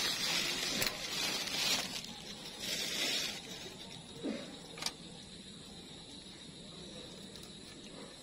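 Plastic bag rustling and crinkling for about three seconds, with a few sharp clicks, the loudest near five seconds in. After that only a faint, steady high-pitched tone remains.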